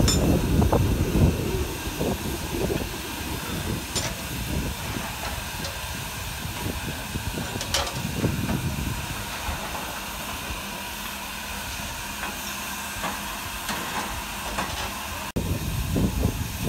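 LNER Thompson Class B1 steam locomotive hissing steam steadily, with a low rumble that fades over the first couple of seconds and a few sharp clicks.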